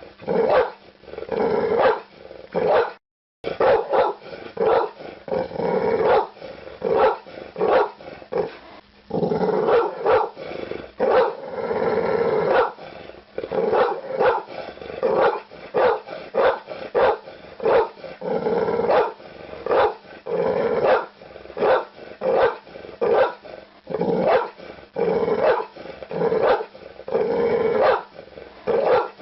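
Pitbull barking over and over in quick runs of barks, with a few longer drawn-out calls between; the sound cuts out for a moment about three seconds in.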